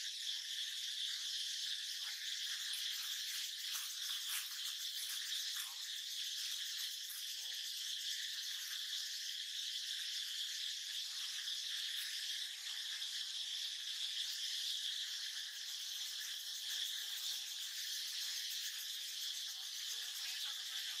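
Steady, high-pitched drone of an insect chorus, with faint scattered rustles.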